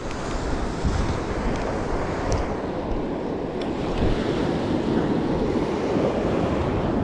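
Surf washing up a sandy beach: a steady rush of small breaking waves, with wind buffeting the microphone.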